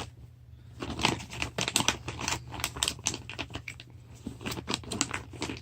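Plastic packaging crinkling and rustling, with many quick small clicks and knocks, as a packet of jerky is pushed into a packed bag.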